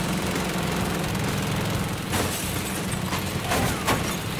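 GAU-19 three-barrel .50-calibre Gatling gun firing a sustained burst at about 1,300 rounds a minute, a continuous rapid buzz, with sharp cracks about two seconds in and again near the end.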